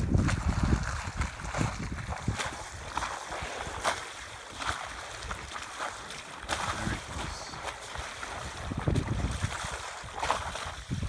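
Wind buffeting the microphone and water washing around a small sailing yacht, the gusts heaviest in the first second, with short splashes scattered through.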